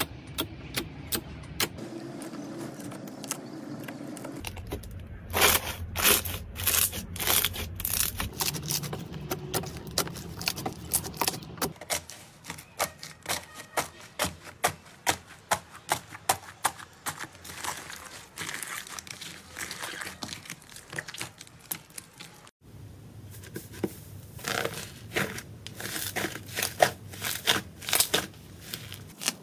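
Slime being pressed, stretched and kneaded by hand, giving many sharp crackling clicks and pops as trapped air breaks through. The crackles come in dense runs, with a brief break about three-quarters through.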